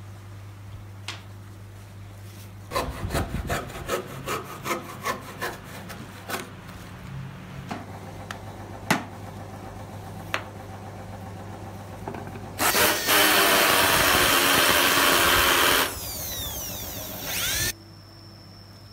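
Woodworking on a wooden boat hull: a quick run of sharp knocks on wood, a few single knocks, then a power tool running loudly for about three seconds and winding down with a falling whir, over a steady low hum.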